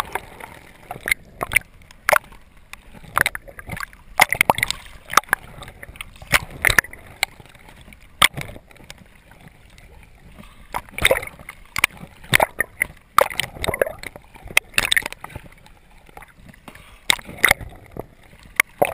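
Water sloshing and gurgling around a camera at and just below the sea surface, with irregular sharp knocks and clicks and louder splashy bursts every second or two.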